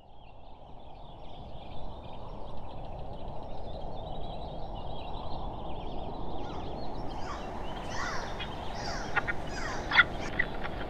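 Steady low ambient noise fading in, with a fine high chatter over it; from about seven seconds in, a series of short bird squawks and chirps with a few sharp clicks.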